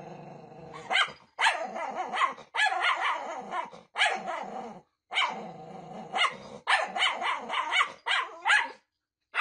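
A small short-haired dog barking in quick runs, with some growling between barks, as it faces its own reflection in a glass cabinet door.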